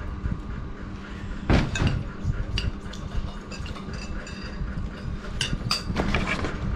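Metal spoons clinking and scraping against ceramic rice bowls and plates, a string of sharp clinks with short ringing, the loudest about a second and a half in. A steady low hum runs underneath.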